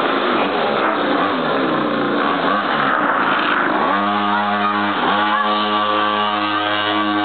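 Small engine of a child's mini quad bike running and revving, its pitch wandering up and down for the first few seconds, then rising about four seconds in to a steady note, with a short dip and recovery about a second later.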